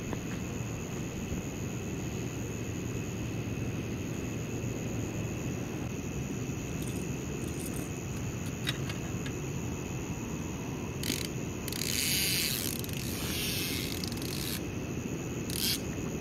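Steady low rumble of outdoor background noise, with a few short rasping, scratchy sounds in the last few seconds.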